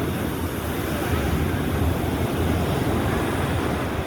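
Sea surf breaking and washing up the beach: a steady, loud rush of waves, with a low rumble of wind buffeting the microphone.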